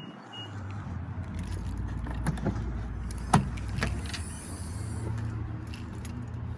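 A steady low motor hum in a car, with a few sharp clicks and knocks of things being handled, the loudest about three seconds in.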